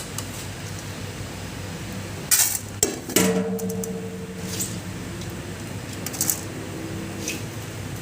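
Metal cooking utensils and pots clinking and knocking, several times. One strike leaves the pot ringing for about a second, over a steady background hiss.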